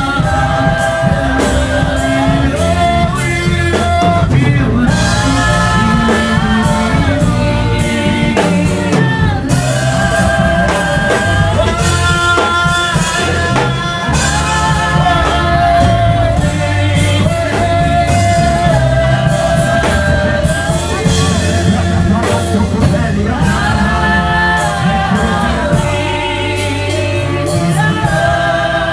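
Worship music: long held sung lines over a full band with a steady beat.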